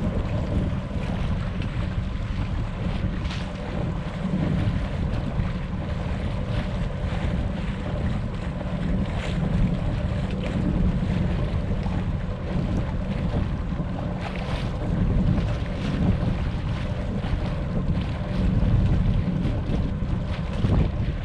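Wind buffeting the microphone aboard a sailboat under way under motor, with the boat's engine humming steadily and water rushing along the hull.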